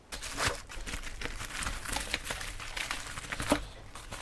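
Plastic wrapping and a nylon carrying bag rustling and crinkling as backdrop stand parts are handled, with small clicks and knocks. One sharper click comes about three and a half seconds in.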